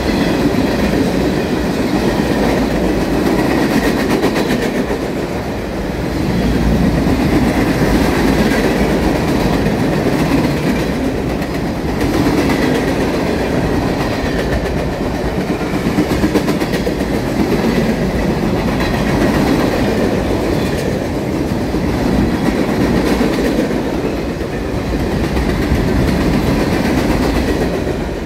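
Freight train cars (tank cars and covered hoppers) rolling past close by: a steady rumble of steel wheels on the rails with repeated clicks as the wheels cross rail joints, swelling and easing every few seconds as each car goes by.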